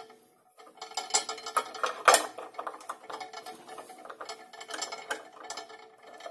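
Steel hand tools working on a copper pipe: locking pliers squeezed shut on a copper patch sleeve and an adjustable wrench set against their handles, giving a run of small metallic clicks and clinks. One sharp, louder click comes about two seconds in.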